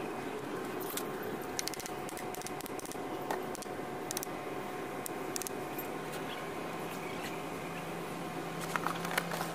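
Steady low machine hum with a few faint steady tones, overlaid by scattered light clicks and taps of hands handling oily metal parts, with a small cluster of clicks near the end.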